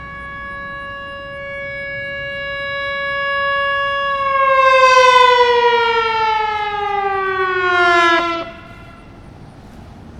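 Whelen Vortex electronic outdoor warning siren sounding a steady alert tone of about 560 Hz that grows louder over the first few seconds. About four seconds in it winds down in a smooth falling glide, then cuts off abruptly at about eight and a half seconds.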